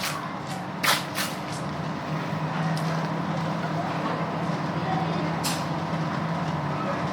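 Motorcycle-wash equipment: a motor hums steadily while a spray nozzle lets out a few short hissing bursts, twice close together about a second in and once more past the middle.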